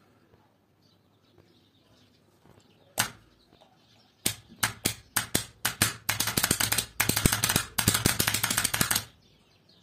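AC contactor clicking as it pulls in and drops out: one click about three seconds in, then a quickening series of clicks from about four seconds in that runs into a dense, rapid chattering buzz for about three seconds and stops near nine seconds, as its coil's plug makes and breaks contact.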